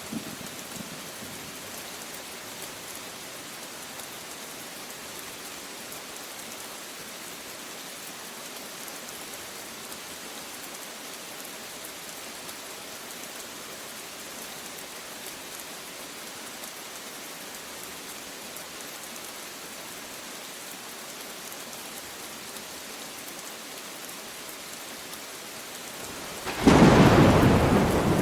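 Steady rain falling, then near the end a sudden loud clap of thunder that rumbles on and slowly fades.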